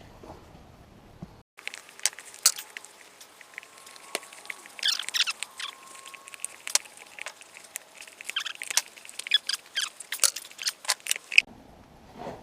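Sped-up sounds of working a stiff old tire off a mower wheel: a quick jumble of high-pitched clicks, clanks and squeaks, running from about a second and a half in until shortly before the end.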